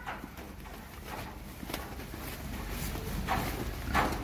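Pigs moving about on a concrete pen floor: faint scuffs and shuffling over low background noise, with no calls.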